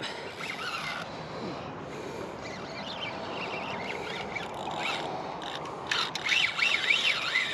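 Fishing reel drag paying out line in irregular squealing runs, louder and quicker near the end: a fish, taken for a shark, running with the bait.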